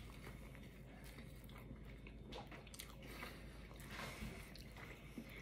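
Faint biting and chewing of a mozzarella cheeseburger, with a few soft crunches.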